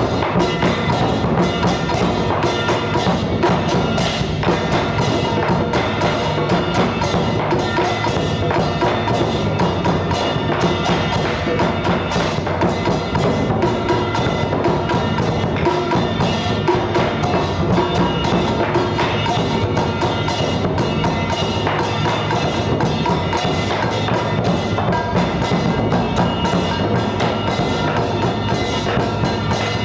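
Ritual percussion music: rapid, continuous wooden knocking with ringing bell tones over it, steady throughout.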